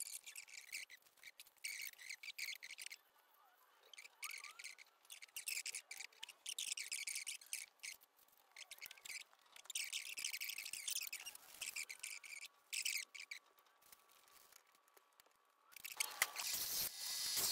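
A pen scratching in short strokes as it traces around a card template onto aluminium sheet covered in protective plastic film, in bursts with pauses. Near the end a band saw starts running, a louder steady noise.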